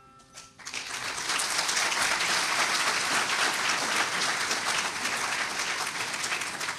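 Audience applauding. The clapping rises quickly about half a second in and keeps up steadily.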